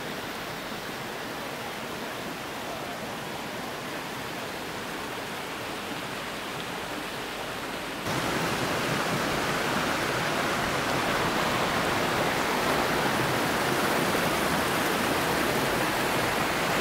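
Creek water rushing over rocks in a steady, even rush. About halfway through it cuts to a louder, fuller rush.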